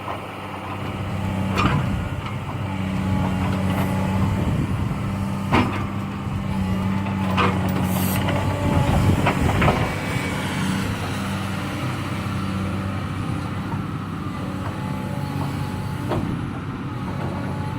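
Excavator's diesel engine running steadily under load, with a handful of sharp clunks in the first half from the logs being loaded.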